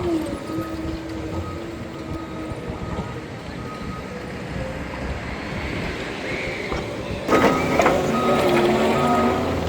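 Repeated short electronic beeps at one pitch, like a construction vehicle's reversing alarm, over steady outdoor background noise. About seven seconds in, the sound turns suddenly louder and busier.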